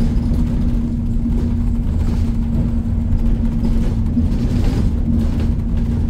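Inside a moving bus: a steady low drone of engine and road noise, with a constant hum running through it.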